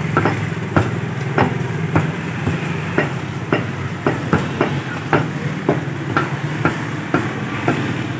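Meat cleaver chopping boneless buffalo meat into cubes on a wooden stump block, a steady series of sharp strikes about two a second. A steady low hum runs underneath.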